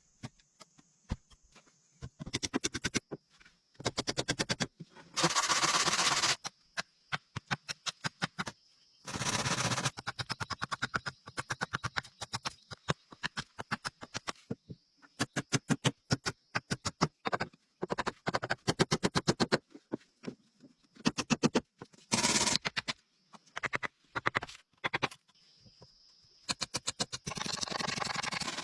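Fast, irregular runs of clicks and rattling taps, in bursts of a second or two, over a faint steady high-pitched hiss.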